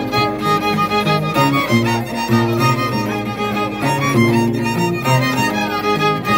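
Live Andean Christmas dance music: a violin plays a lively melody over the low plucked bass notes of an Andean harp.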